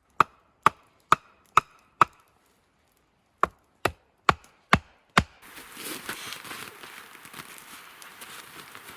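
Wood being chopped: ten sharp, evenly spaced chops at about two a second, five in a row, a short pause, then five more. After that a steady hiss with faint crackles takes over.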